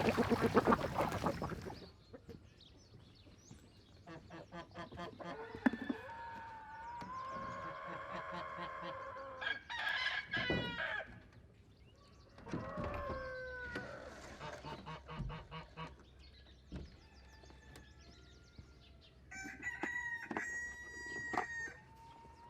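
Chickens clucking and a rooster crowing: several separate calls with quiet gaps between them.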